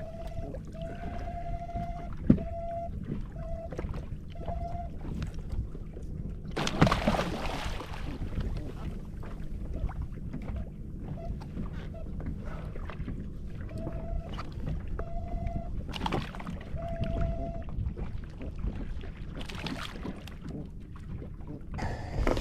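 Small fishing boat sitting on the water: a steady low rumble of wind and water on the hull. Twice it is broken by a run of short, steady whining tones of one pitch, and it has a sharp click early on and a couple of louder rushes of noise.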